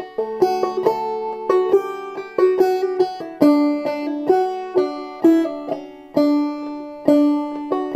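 Open-back banjo with a skin head played clawhammer style in open D tuning: a simple, lively tune of plucked notes in a steady rhythm, each note ringing out and fading.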